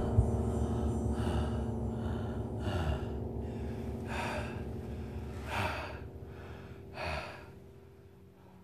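A man's heavy breathing, five breaths about a second and a half apart, over a low droning film score that fades out.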